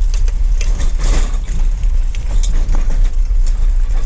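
A vehicle's engine running with a steady deep rumble, with scattered light rattles and clicks over it.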